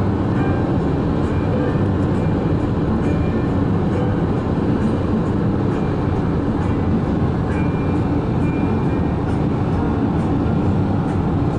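Steady low rumble of a moving vehicle's ride noise, with faint irregular ticks.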